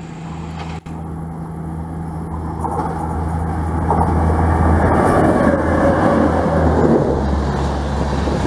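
Rajdhani Express behind an electric locomotive running through a station at speed. A steady low hum lies under a rising rush of wheels on rail that is loudest as the locomotive passes, about four seconds in.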